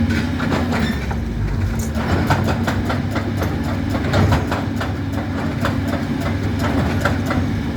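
Doosan DX225 excavator's diesel engine running steadily, with irregular metallic knocks and clatter from the working attachment several times a second.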